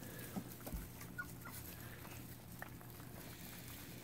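Four-week-old goldendoodle puppies eating soft mush from a shared dish: faint lapping and smacking ticks, with a brief puppy squeak or two.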